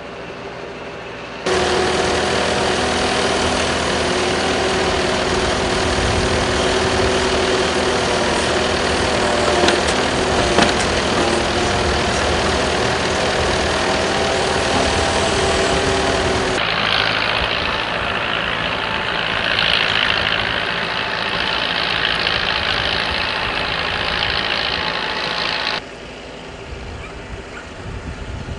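Engine of the farm machine spreading chicken manure, running loud and steady. About sixteen seconds in the sound switches abruptly to a higher, hissier noise, and it falls away sharply a few seconds before the end.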